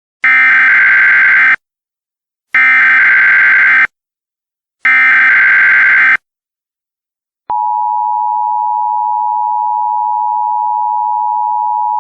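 Emergency Alert System header: three identical short bursts of screechy SAME data tones, each about a second and a half long, with about a second between them. About seven and a half seconds in, the steady two-tone EAS attention signal starts, two close pitches of about 853 and 960 Hz sounded together.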